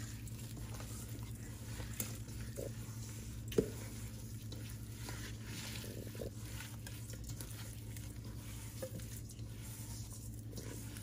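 Gloved hand tossing raw chicken tenders in dry seasoning in a stainless steel bowl: soft, wet squishing and rustling, with one sharp tap against the bowl about three and a half seconds in, over a low steady hum.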